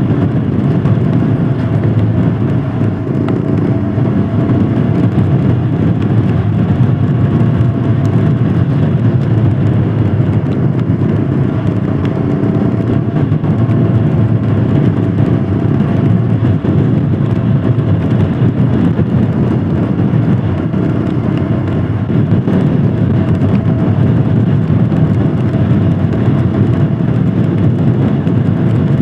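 Royal Enfield Himalayan Scram 411's 411 cc single-cylinder engine running steadily under way, with road and wind noise. The engine speed holds fairly even, with no hard revving.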